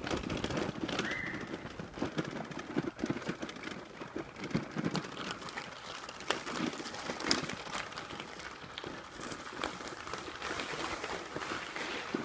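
Footsteps crunching on gravel, an irregular run of small crunches and clicks, with a short bird chirp about a second in.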